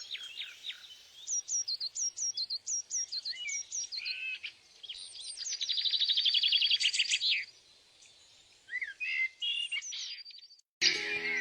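Songbirds singing: a fast high trill, then a run of sharp falling whistled notes about two a second, then another fast trill and a few scattered calls. Near the end the sound cuts abruptly to music with steady tones.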